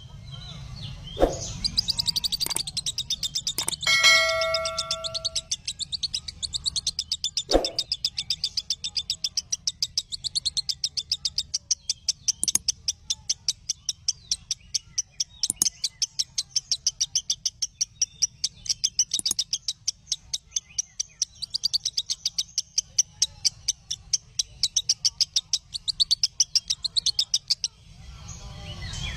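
Lovebird chattering in a long unbroken run of rapid high chirps, about five a second, the continuous 'ngekek' song used to train other lovebirds. A brief ringing tone sounds about four seconds in.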